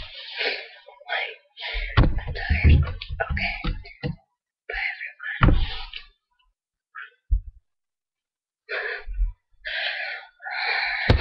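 A woman's voice making wordless, drawn-out vocal sounds in short bursts, mixed with knocks and thumps of handling close to the microphone. There is a pause of a couple of seconds past the middle.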